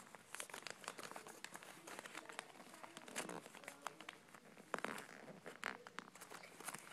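Origami paper crinkling faintly as fingers fold and crease it: a run of small, irregular paper clicks and rustles.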